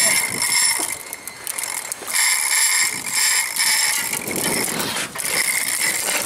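Heavy conventional fishing reel whirring and ratcheting in three bursts, working under load from a hooked goliath grouper.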